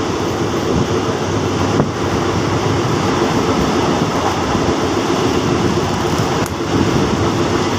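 Steady running noise of a passenger train, heard from on board a carriage as it rolls along: a constant low rumble with a rushing hiss over it.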